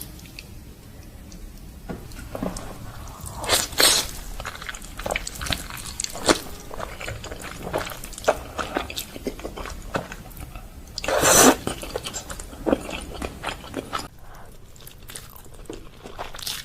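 Close-miked eating of instant noodles: wet chewing and mouth smacks in quick irregular strokes. Two louder, longer bursts come about four seconds in and again about eleven seconds in.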